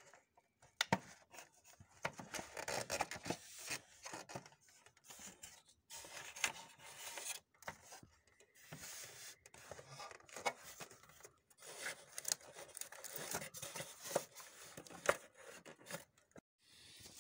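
Hands working on a photocopier's scanner assembly, handling its plastic panels and cables: irregular scraping and rustling with sharp plastic clicks, the loudest about a second in and about fifteen seconds in.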